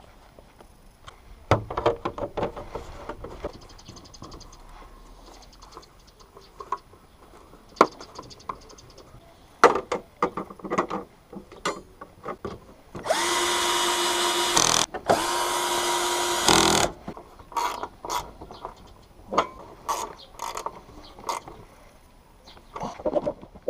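A handheld electric drill-driver runs twice, each time for about a second and a half, spinning up quickly to a steady whine. Scattered clicks and knocks of parts being handled come before and after.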